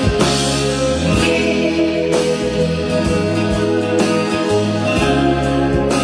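Recorded guitar music played back through Klipsch RF800 floor-standing speakers driven by a single-ended tube amplifier, steady and continuous with plucked notes.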